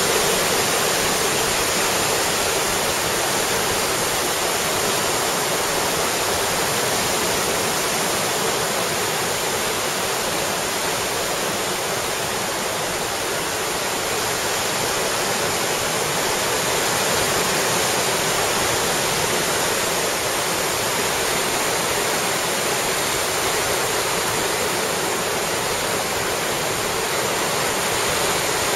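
Steady rushing of a fast tidal current churning into whirlpools: an even, unbroken hiss of turbulent water, with little deep rumble.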